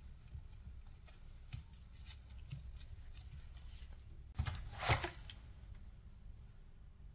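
Nitrile-gloved hands pressing pastry dough against a steel ring, with soft rustles and faint ticks, then two louder brief handling noises about four and a half seconds in.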